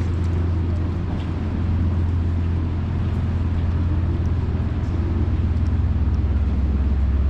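Steady low mechanical hum with faint outdoor street noise.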